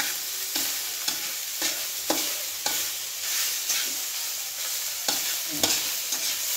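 Chicken pieces sizzling as they sauté in oil with garlic and onion in a metal wok, with a spatula scraping and knocking against the pan about every half second as they are stirred.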